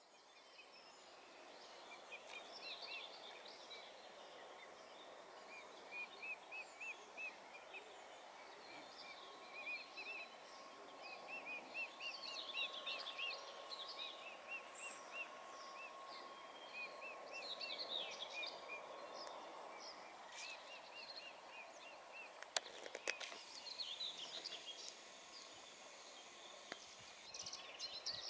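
Birdsong from several small birds: repeated runs of quick high chirps and other short calls over a faint steady background hiss, fading in at the start. A couple of sharp clicks sound about three-quarters of the way through.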